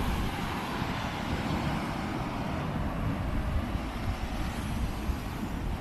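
Steady rush of wind buffeting the microphone, over the wash of small waves breaking on a sandy beach.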